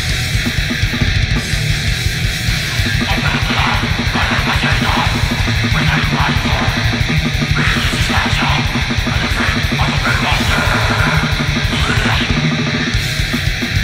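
Black/death metal demo recording: distorted guitars over fast drumming, a dense, steady wall of sound.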